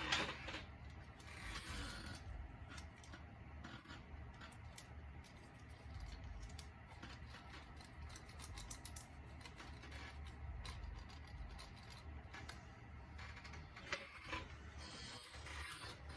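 Scotch tape being peeled, torn and pressed onto a glass light shade: a scatter of small crackles, rubs and clicks over a low steady hum.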